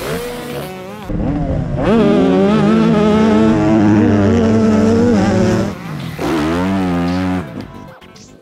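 Motocross bike engines revving at high throttle, the pitch wavering up and down as the throttle is worked. It comes in loud about a second in, dips briefly near six seconds and fades away near the end.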